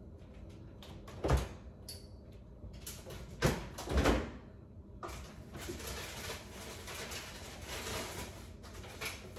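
Kitchen cupboard door knocks and bumps, with three sharp ones in the first four seconds, followed by a soft steady noise.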